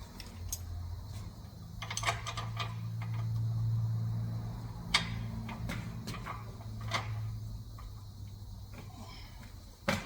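Scattered mechanical clicks and knocks, with a sharper knock at the end, over a low hum that swells to its loudest about four seconds in and then fades.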